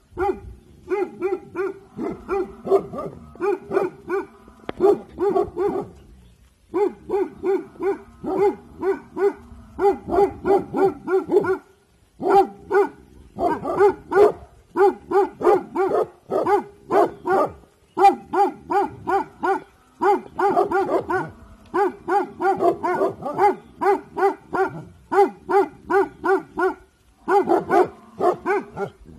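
Bhotia guard dogs barking on alert, rapid and repeated in long runs broken by short pauses, warning off something beyond the property.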